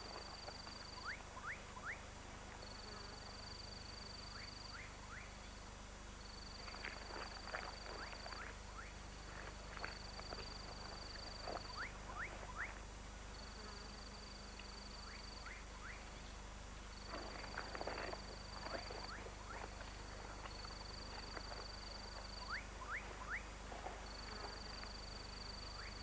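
Rainforest animal chorus: an insect's high, buzzing trill repeats about every three and a half seconds, with quick runs of three or four short, sharp chirps between the trills. A brief rustling comes about two-thirds of the way through.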